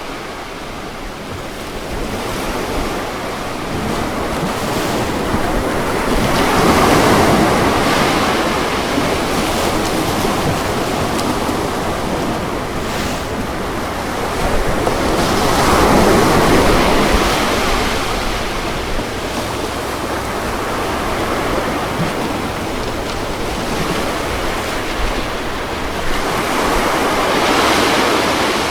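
Ocean waves breaking on a beach, in three slow swells that build and fade, the strongest about a quarter, half and near the end of the way through.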